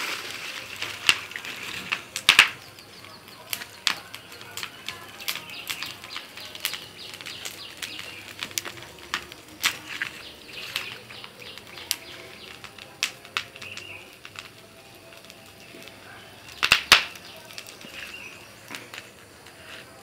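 Fire of dry palm fronds and bamboo crackling, with a steady hiss and frequent sharp pops, loudest in clusters about two seconds in and again about three quarters of the way through.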